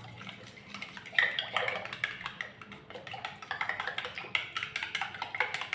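A spoon clicking and scraping against a bowl while stirring a batter of milk, yeast, sugar and egg as flour is worked in; quick, irregular taps.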